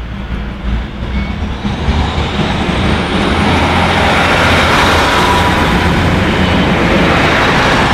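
Class 156 Super Sprinter diesel multiple unit passing close by: a low rumble from its underfloor diesel engine under the rush of wheels on rail. It grows louder about two to three seconds in and stays loud as the carriages go past.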